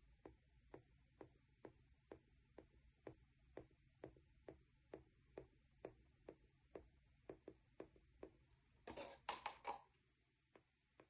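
Faint, very regular ticking, a little over two ticks a second, with a short cluster of louder clicks and rustling about nine seconds in.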